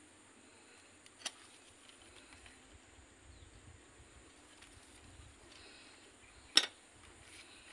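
Two short, sharp clicks or snaps while a small ficus bonsai is being worked on: a light one about a second in and a much louder one near the end, over a faint steady background.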